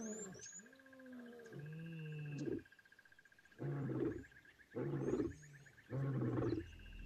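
Lion roaring: low moaning calls that rise and fall, then three heavy grunts about a second apart.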